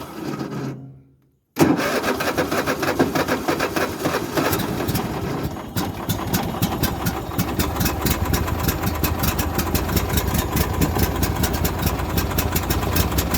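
Small lawnmower engine, primed with gas poured in under the air filter because the choke doesn't work, is pull-started. A first try dies away, then about a second and a half in the engine catches and keeps running steadily.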